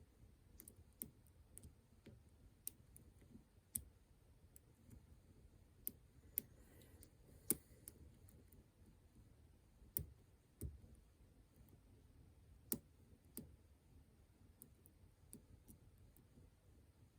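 Irregular small clicks from the pin tumblers of an ASSA Twin Combi lock cylinder being worked with a hook pick, as the barrel driver pins click into place while being set. The clicks come singly, some seconds apart, the loudest about seven and a half seconds in.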